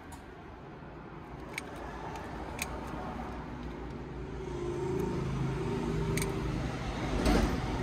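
Tube cutter being turned around a metal pipe: a low scraping rumble with a few sharp clicks, growing louder toward the end.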